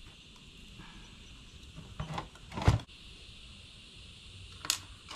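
A few short plastic-and-wire scrapes and rubs as solar cables are pushed through an Anderson plug housing. The loudest comes about two and a half seconds in, and a shorter one near the end.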